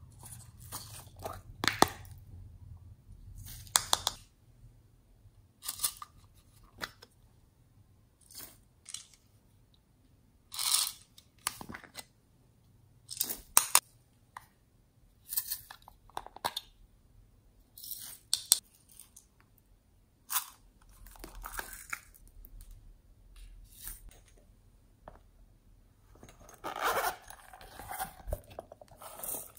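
Plastic toy capsules clicked and snapped open and their small beads and sprinkles rattled out, a string of short sharp sounds a second or two apart. Near the end there is a longer rasp, a zipper pulled on a fabric coin pouch.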